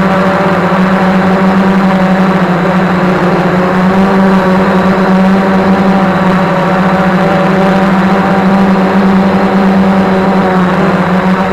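3DR Iris+ quadcopter's motors and 1045 (10×4.5-inch) propellers running at a steady pitch in flight, a loud, even drone, heard close up from the camera on the craft.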